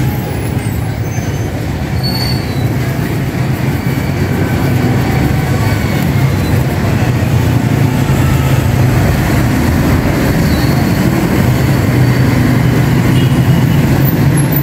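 A steady, loud, low mechanical hum that holds without a break, with a few faint high tones over it.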